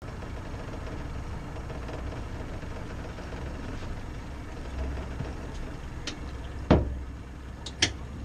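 Twin Yamaha 200 outboard motors idling as the boat moves slowly at no-wake speed, a steady low rumble. Near the end come two sharp knocks about a second apart, the first the louder.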